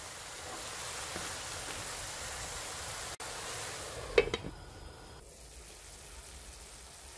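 Chopped mushrooms sizzling steadily in a pan while the water they have released cooks off. A brief sharp clink comes about four seconds in, and after it the sizzling is quieter.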